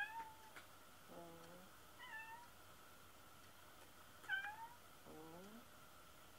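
Domestic cat meowing five times over a few seconds, short calls that alternate between higher, sharper cries and lower, drawn-out ones, the last rising. This is lonely meowing by a cat left alone at home.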